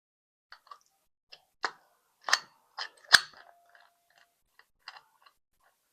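Metal padlock handled: an irregular series of sharp clicks and knocks, the loudest a single hard knock about three seconds in.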